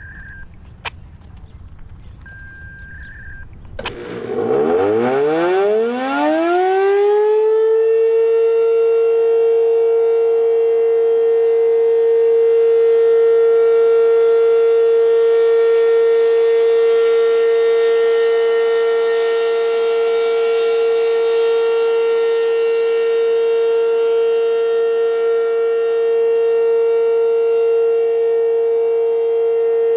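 American Signal RM-127 electromechanical warning siren starting up about four seconds in, its pitch climbing for a few seconds to a steady, very loud tone: the steady Alert signal of a siren test.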